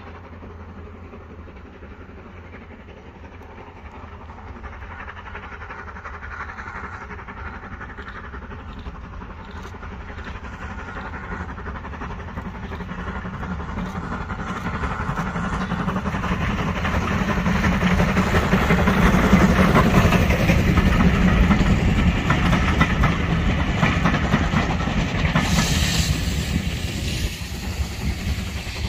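A steam locomotive hauling coaches approaches and passes, its rhythmic working growing steadily louder to a peak about two-thirds of the way through and then falling away as it goes by. A brief burst of hiss comes near the end.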